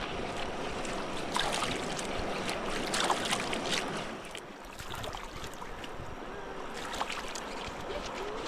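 Flowing river water with scattered splashes and trickles, as water is scooped and poured over the legs while rinsing.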